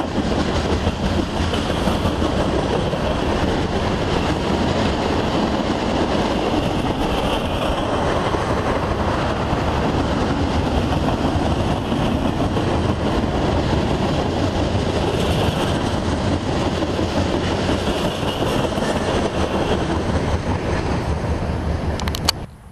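Freight cars, covered hoppers and boxcars, rolling past close by: a steady, loud rumble and rattle of steel wheels on rail. It cuts off suddenly near the end.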